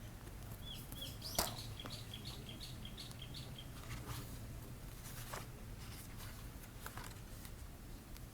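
A small bird calling a quick run of about ten short, high chirps over about three seconds, with one sharp click about a second and a half in and a few fainter taps later, over a steady low wind rumble.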